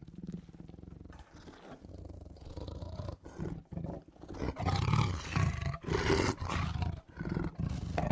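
Lions snarling and roaring angrily in a series of rough bouts with short breaks, getting louder about halfway through.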